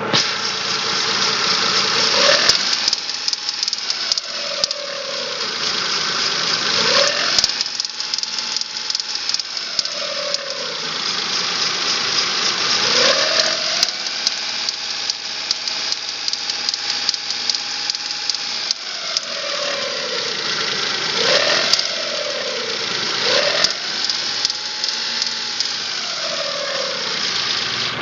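Chevrolet Spark 0.8 L three-cylinder engine revved up several times, held and let fall back, with a knock running through it that the owner takes for valve tapping, since the valves have not been adjusted, or possibly a camshaft problem.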